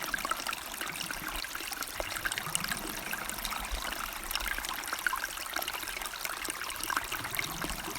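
River water flowing, a steady rush with many small splashes and trickles.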